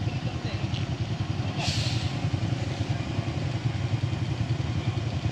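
A light truck's engine pulling hard at low revs as it climbs a steep dirt-and-gravel slope under load. A short hiss comes about two seconds in.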